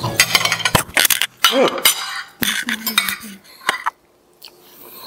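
Metal forks and spoons clinking and scraping on ceramic plates while eating, in an irregular run of sharp clinks.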